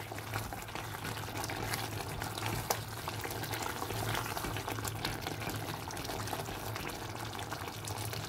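Thick tomato gravy with chicken pieces bubbling and sizzling in a karahi on a medium flame, stirred with a spatula, with an occasional sharp click: the bhuna stage, as the masala is fried down.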